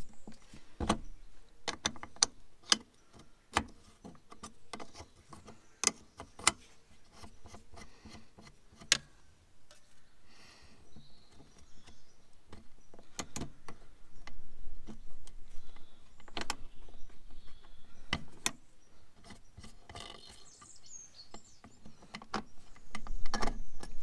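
Scattered sharp metallic clicks and taps, irregular and with quiet gaps, as a hand tool works the lower end of a tractor's throttle cable free from its mounting under the cab.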